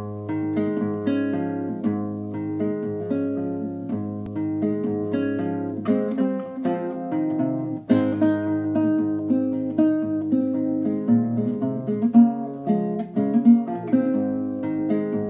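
Solo nylon-string classical guitar played fingerstyle with a capo on the first fret: plucked melody notes over a steady bass line, with fuller struck chords now and then.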